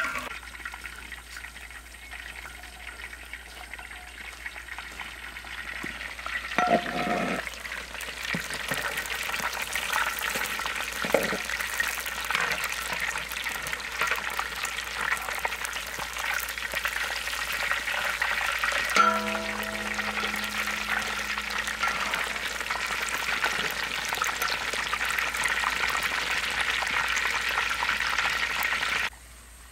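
Whole chickens deep-frying in a large wok of hot oil: a steady crackling sizzle that grows louder after the first few seconds, while a metal spatula turns the pieces. A short low hum comes about two-thirds through, and the sizzle cuts off just before the end.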